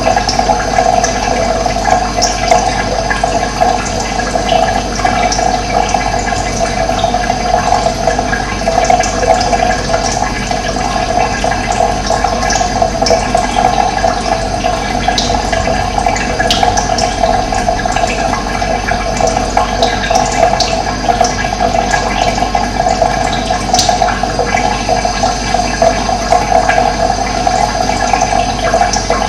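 Running water flowing steadily, with brief, scattered bird chirps above it.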